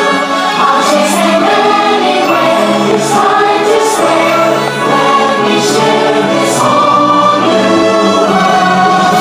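Loud show music: a choir singing over orchestral backing.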